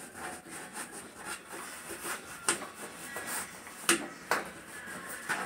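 Dryer parts and tools being handled during a repair: light scraping and rustling with three sharp clicks or knocks, about two and a half, four and four and a half seconds in.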